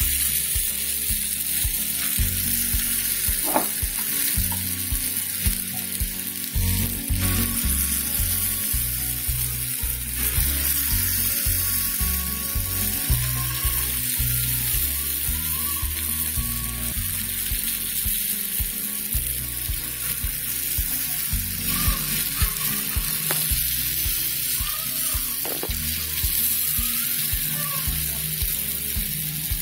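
Urad dal vada batter deep-frying in hot oil, a steady sizzle that goes on without a break while more dollops are added to the pan.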